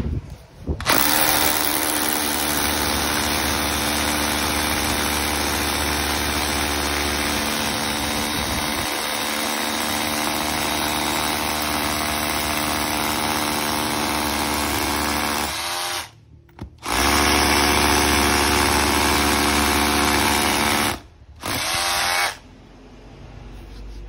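Makita 18V cordless rotary hammer drilling a 10 mm bit into a concrete block, running steadily at full speed. Near the end it winds down and stops twice for under a second before starting again, then stops for good shortly before the end.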